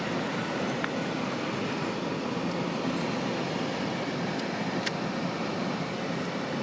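A van's engine running steadily, heard from inside the cabin.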